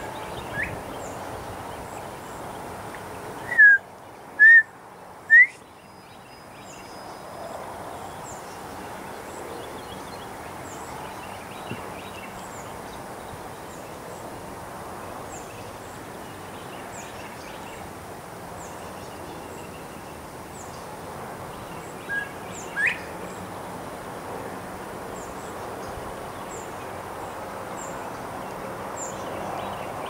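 Male northern bobwhite whistling its bob-white call in clear whistled notes that rise at the end: a loud run of three notes about four seconds in, and a fainter two-note call a little past the middle, its last note sweeping sharply upward. Faint high chips repeat throughout.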